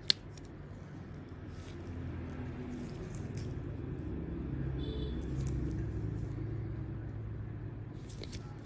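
Low engine rumble, like a passing motor vehicle, that swells from about two seconds in, peaks past the middle and fades again. A single sharp click comes right at the start.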